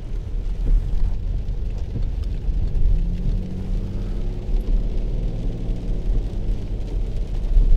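Car driving, heard inside the cabin: a steady low rumble of engine and road noise, with the engine's hum rising about three seconds in and holding for a few seconds.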